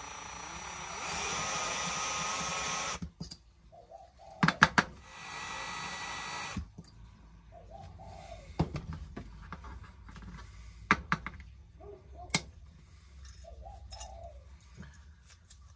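Cordless drill running in two bursts, the first about three seconds long and growing louder partway through, the second shorter, drilling out the rivet that holds the glazing in a diecast toy van. Between and after the bursts come sharp clicks and light taps of the small metal and plastic parts being handled.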